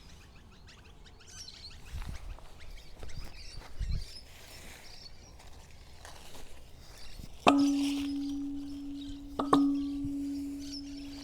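Guavas dropped into a bucket: two sharp knocks about two seconds apart, each leaving the bucket ringing with a steady hum that fades slowly. Before them come rustling and handling sounds, with faint bird chirps throughout.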